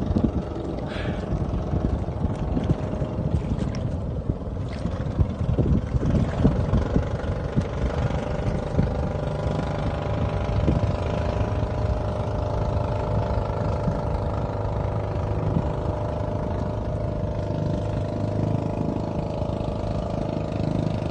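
A small boat's engine running steadily, its hum settling into an even drone about halfway through.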